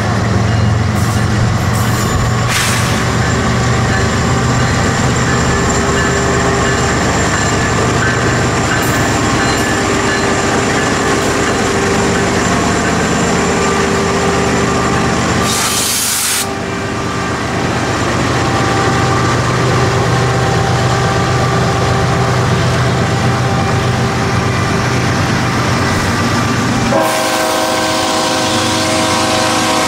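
BNSF diesel freight locomotives running with a steady low engine drone. A brief hiss comes about halfway through, and near the end a multi-chime locomotive air horn starts to sound.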